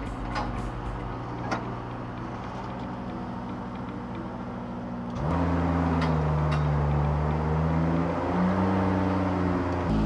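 Scissor lift's motor running steadily, then louder about five seconds in, its pitch rising and falling as the lift is worked.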